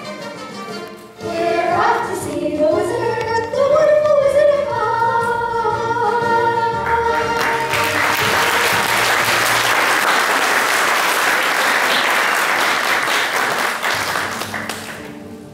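Cast voices singing a song with musical accompaniment, ending on a long held note about seven seconds in, then audience applause that fades away near the end.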